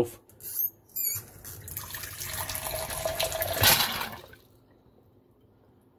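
Water from a reverse osmosis drinking-water faucet gushing into a glass measuring cup. It builds for about three seconds, then stops fairly sharply, after a few short squeaks and clicks near the start. This is the first flush on line pressure through freshly replaced RO filters, a short burst that blasted out.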